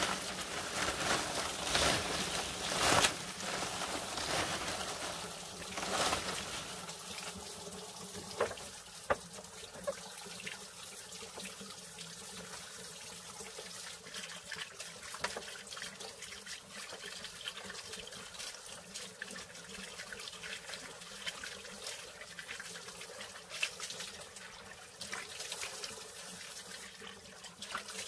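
Water running and splashing, with a few sharp knocks in the first several seconds and only scattered clicks after that.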